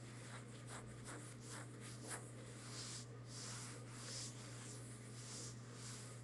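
Faint, soft scratchy dabbing and rubbing of a foam dauber working wax into a rough, ridged surface, about two or three strokes a second.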